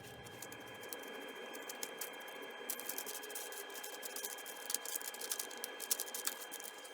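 Light scratching and a rapid scatter of small clicks and ticks as stain is worked onto small sanded wooden latch pieces by hand.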